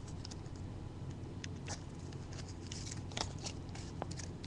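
Faint scattered clicks and light rustles of trading cards being handled and sorted by hand, over a low steady hum.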